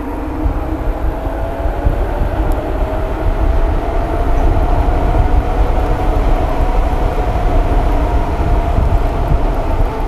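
Knobby mountain-bike tyres humming on asphalt at speed, the hum rising slowly in pitch over the first few seconds and then holding steady, under a heavy low rumble of wind on the microphone.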